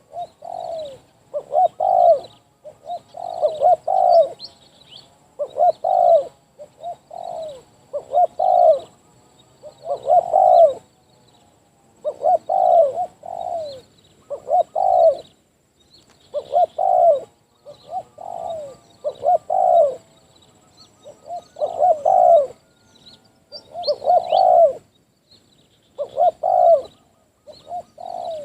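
Spotted dove (tekukur) cooing over and over, in phrases of two or three notes repeated about every two seconds.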